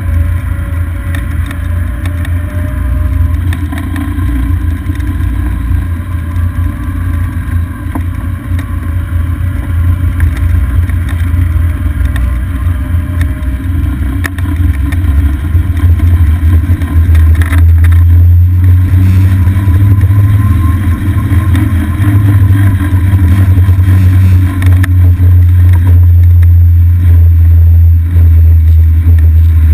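A golf cart driving along a paved road, heard from a camera mounted on the cart: a steady loud low rumble of wind on the microphone, the cart and its tyres, louder from about halfway in.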